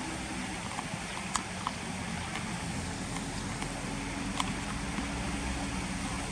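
A steady low engine-like hum with a constant background hiss, and a few short sharp clicks: two in quick succession about a second and a half in, and one more past the middle.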